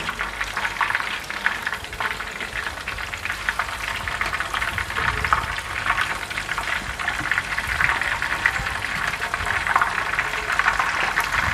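Battered shrimp and salmon pieces frying in a pan of hot oil: a steady, dense sizzle full of fine crackles and pops.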